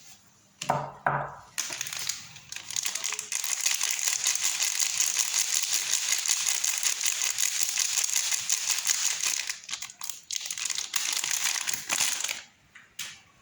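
Soap wrapper being crinkled and pulled open by hand, with about ten seconds of dense, continuous crinkling. Two sharp knocks come just before it starts, and a couple of short clicks follow after it stops.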